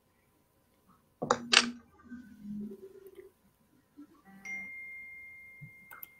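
A single high ding: one clear ringing tone that starts sharply about four and a half seconds in and fades slowly over two to three seconds. Earlier, about a second in, come two short, loud, sharp noises.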